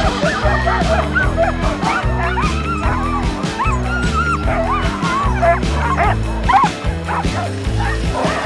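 A team of harnessed sled dogs barking and yipping in many short, rapid high yelps, typical of dogs eager to run at a race start. Background music with a steady beat plays under them.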